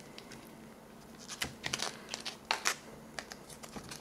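A stiff foil-laminate MRE peanut butter pouch being torn open and crinkled in the hands: a run of sharp crackles and tearing clicks, loudest in two bursts around the middle.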